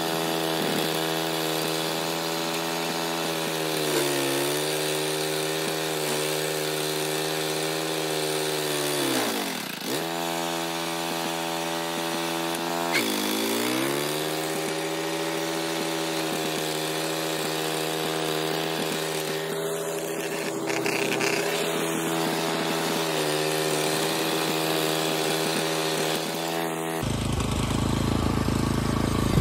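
Engine of an OREC HRC664 walk-behind hammer-knife mower running at steady speed while it cuts overgrown grass. Twice it bogs down sharply and recovers. Near the end the sound changes abruptly to a lower rumble.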